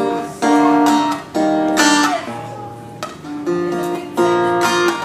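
Acoustic guitar playing a slow intro, strummed chords struck about once a second and left to ring.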